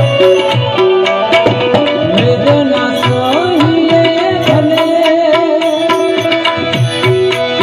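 Gujarati devotional bhajan music: a tabla plays a steady rhythm under held harmonium tones, while a melody line slides and bends in pitch through the middle.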